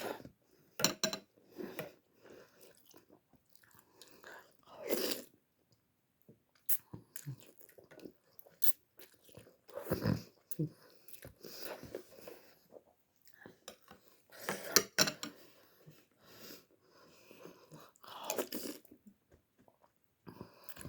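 A person eating instant vermicelli noodles close to the microphone: irregular chewing and biting sounds, with a few louder bursts every few seconds.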